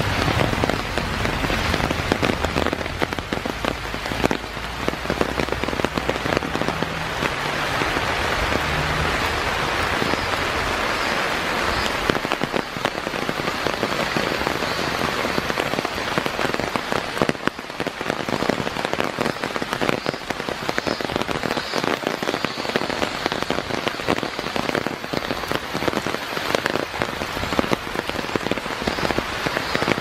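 Steady rain falling on leafy forest trees and a wet wooden boardwalk: a dense, even patter of countless drops.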